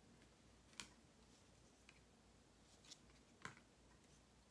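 Near silence broken by three soft, sharp clicks, a second or two apart: tarot cards being drawn and laid down.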